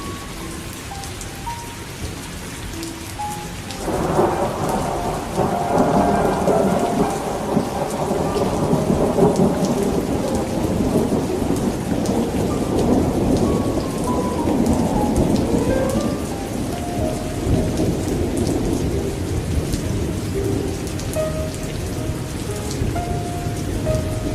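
Steady rain with a long roll of thunder that swells suddenly about four seconds in and dies away over about twelve seconds.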